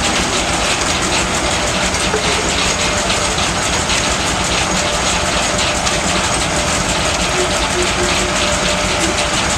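Engine-driven sawmill machinery running steadily, a continuous mechanical rumble with a fast rattle over it.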